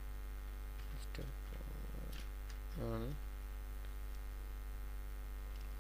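Steady electrical mains hum on the recording, with a few faint computer-keyboard key clicks as code is typed. A short murmured vocal sound comes about three seconds in.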